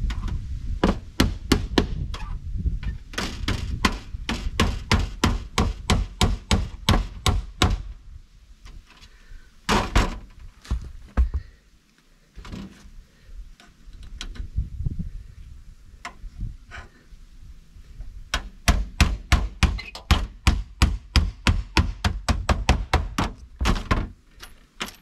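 Claw hammer striking brown sheet-metal roof flashing: two runs of quick blows, about three a second, with a stretch of scattered single blows between them.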